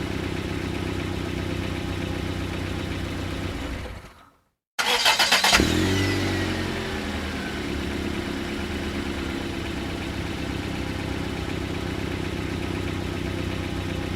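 A car engine idling steadily fades out; after a brief silence the starter cranks rapidly for under a second, the engine catches with a short rev and a falling whine, then settles into a steady idle.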